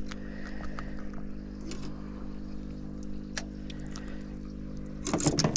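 Boat motor running steadily with a low, even hum. A few light clicks, then a cluster of clicks and rustling near the end as the speckled trout is handled.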